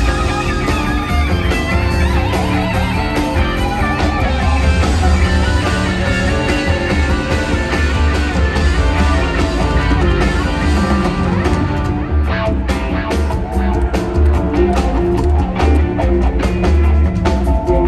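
Live rock band playing, guitar leading over bass and drum kit. The drum hits stand out more sharply in the second half.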